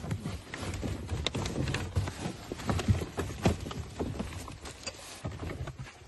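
Irregular hollow knocks, taps and rustling as a dry bag is pushed down into the rear hatch of a plastic Necky Manitou Sport kayak and the rubber hatch cover is handled.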